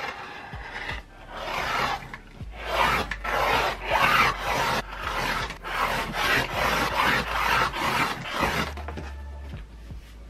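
Rotary cutter rolling through folded cotton fabric onto a cutting mat along an acrylic ruler, in repeated strokes about two a second. The strokes stop near the end.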